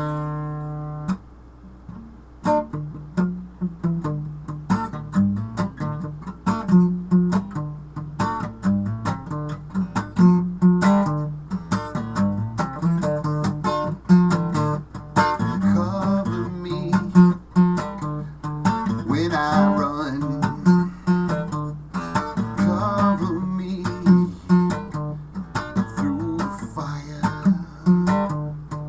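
Steel-string acoustic guitar played solo, plucked notes and chords in a steady rhythm, with a short lull about two seconds in.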